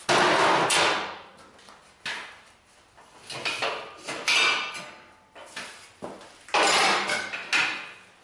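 Steel parts clanking and scraping as they are handled and moved against each other: several loud clatters, each with a sharp start and a scrape that fades over about a second, at the start, around two seconds in, twice around three to four and a half seconds in, and again near the end.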